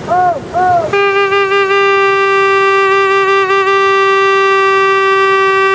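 A horn blowing: four quick hoots, each bending up and down in pitch, then about a second in a single long, steady, lower blast held on one note.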